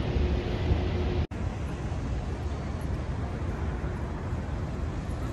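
City street ambience: a steady low rumble of traffic. A brief dropout about a second in, where the recording cuts.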